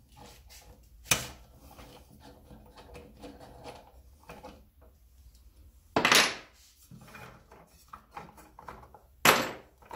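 Hand handling of small metal tool parts on a chop saw during a cutting-disc change: an Allen key working the arbor bolt, and the flange and disc coming off, with light rubbing. Three sharp clacks, about one, six and nine seconds in, the later two the loudest.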